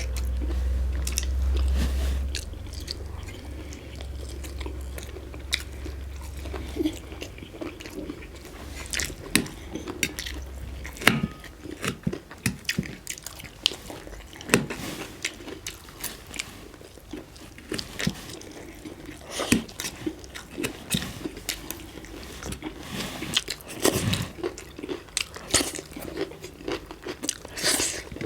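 Close-up chewing, biting and mouth clicks of people eating spicy chicken momo dumplings, with many short smacks scattered throughout. A steady low hum runs under the first ten seconds or so.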